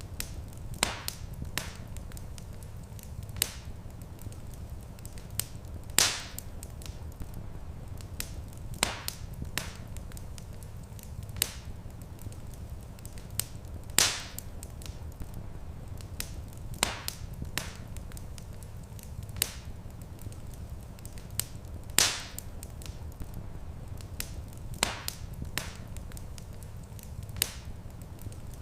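Wood fire crackling in a stone fireplace: scattered sharp pops and snaps over a steady low rumble. A few louder pops come about every eight seconds.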